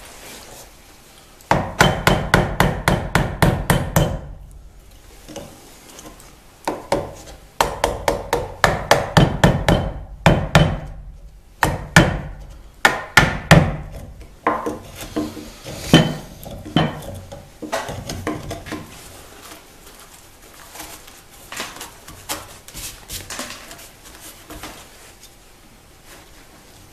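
Wood chisel chopping out the waste in a mortise cut into a wooden beam: runs of quick, sharp knocks about five a second, with single heavier strikes in between, then lighter taps and scraping as the chisel pares the mortise walls in the second half.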